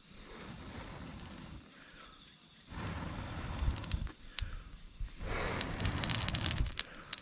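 Air blown through a metal fire-blowing pipe onto glowing embers in three long puffs with short pauses between, the embers crackling with a few sharp pops.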